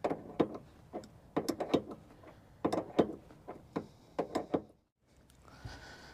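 Irregular metallic clicks and knocks of a wrench working the bolts on the sawmill's mandrel bearing, tightening them to shift the saw's lead. A faint steady hum comes in near the end.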